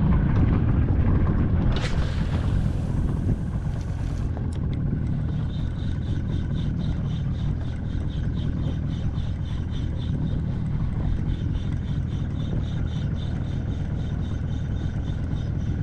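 Wind rumbling on the microphone aboard a small boat. About two seconds in comes a hiss lasting a couple of seconds, ending with a short click. Then a fishing reel is cranked, ticking steadily as a lure is retrieved.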